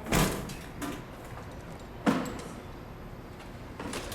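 Sharp clunks or knocks: a loud one at the start, a softer one under a second in, and another loud one about two seconds in, each dying away quickly.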